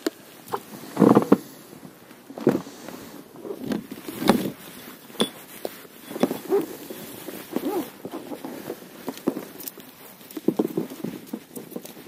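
Irregular knocks, scrapes and rustling of hands at work in a boat as a zander is clipped onto a cord fish stringer and lowered into the water.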